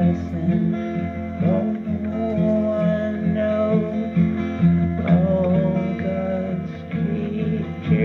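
Music: a song played on acoustic guitar, with a steady pulse of chords and a few sliding melody notes over it.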